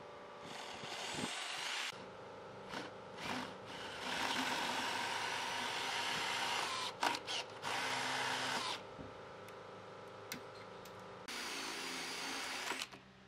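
Cordless drill spinning a small cutting bit that grinds away wood in repeated bursts. The longest burst lasts about five seconds in the middle, and another comes near the end.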